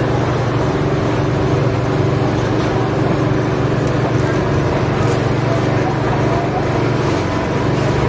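A steady low hum that holds the same pitch and loudness throughout.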